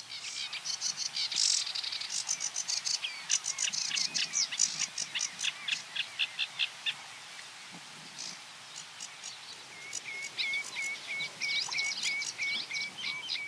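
Sedge warbler singing its fast, varied chattering song of quick rattling notes and trills, with a brief lull about halfway through, then a run of evenly repeated notes near the end.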